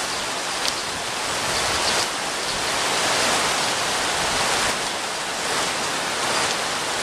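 Heavy rain falling, a steady hiss.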